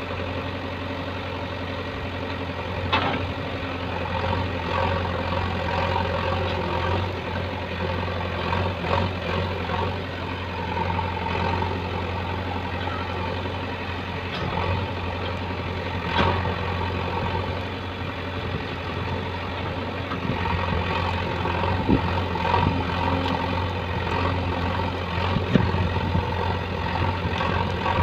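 JCB backhoe loader's diesel engine running steadily as the rear backhoe arm digs and moves soil, with a few sharp knocks along the way.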